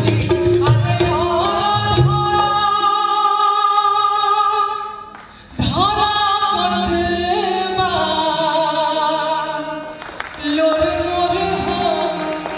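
A woman singing long held notes with vibrato. She breaks off briefly about five seconds in, then starts a new phrase that swoops up into a high note.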